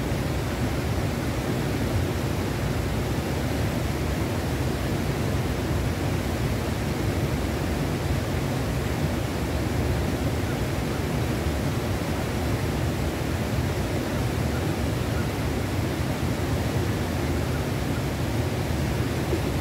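Steady rush of flowing river water, an even noise that holds unchanged throughout.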